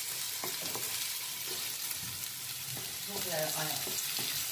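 Grated carrot and onion sizzling steadily in hot oil in a metal kadhai while being stir-fried, with a few scrapes of a flat spatula against the pan in the first second.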